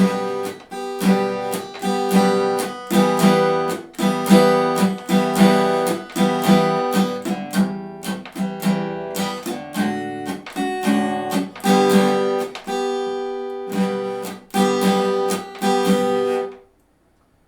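Guitar strumming a steady repeating chord rhythm, with sharp hand-muted hits between the ringing chords. It stops abruptly near the end.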